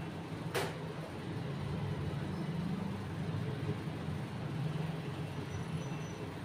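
Steady low rumble of street traffic, with one sharp knock about half a second in.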